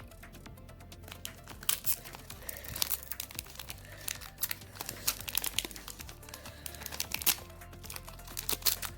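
A foil trading-card booster pack wrapper crinkling and being torn open by hand, in a run of irregular sharp crackles, over quiet background music.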